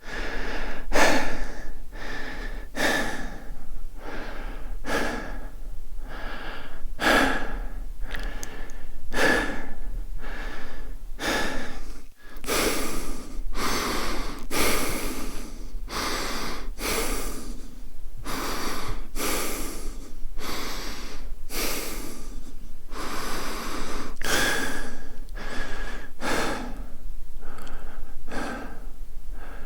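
A man breathing quickly and audibly, in and out, about one breath sound a second, with a brief break about twelve seconds in.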